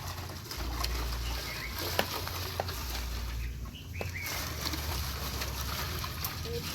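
A few short bird chirps, one falling in pitch, over a low steady rumble, with a few sharp clicks.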